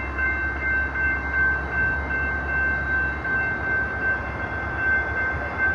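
Amtrak passenger train standing at the station, its Siemens SC44 Charger diesel locomotive running: a steady low rumble under a set of high, steady whining tones. The rumble drops off abruptly about three seconds in.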